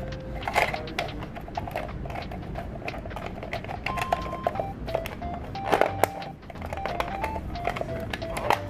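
A simple electronic tune of single beeping notes plays throughout, with sharp plastic clicks and knocks as toy bread is pushed into a plastic toy toaster and the toaster is handled; the loudest clicks come about half a second in and around six seconds in.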